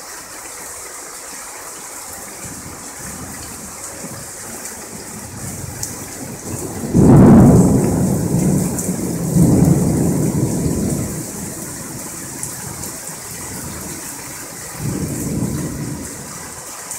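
Thunder over steady rain: a sudden loud crack about seven seconds in rolls into a second peak and a rumble lasting several seconds, then a softer rumble comes near the end.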